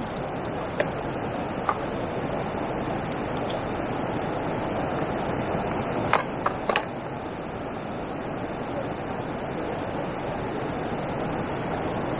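Steady rushing of water over a river weir, mixed with wind, with a few light clicks about six seconds in.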